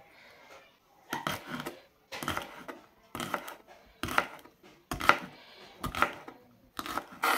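Knife chopping a bundle of green beans on a wooden cutting board: short runs of quick knocks on the board, about one run a second, starting about a second in.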